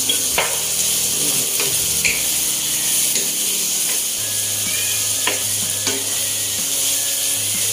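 Pork and bitter melon sizzling steadily in a wok with a little water just added, while a wooden spatula stirs, tapping the pan in a few sharp clicks.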